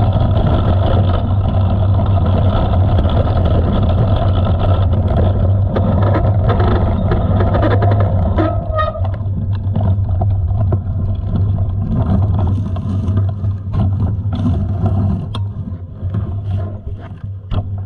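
Wind rushing over an action camera's microphone and a bicycle rolling fast down a dirt track, with scattered clicks and rattles from the bike over bumps. The rush thins out about halfway through and fades near the end as the bike slows.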